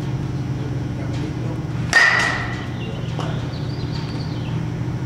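A bat hits a baseball once, about two seconds in, a sharp crack with a short ringing tail, and a softer knock follows about a second later. A steady low hum runs underneath.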